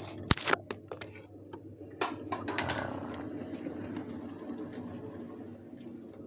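A few knocks and bumps of the phone being handled, then from about two seconds in a small electric motor running steadily.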